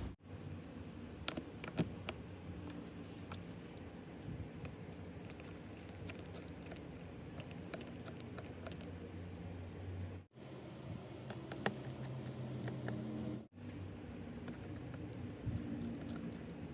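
Scattered small clicks and light metallic taps of repair tools working on an opened iPhone 12 Pro, over a faint steady hum. The sound cuts out briefly twice.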